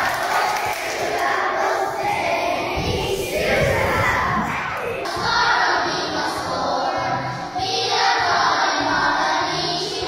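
Many schoolchildren's voices chanting and shouting together. About five seconds in it cuts to a group of children singing.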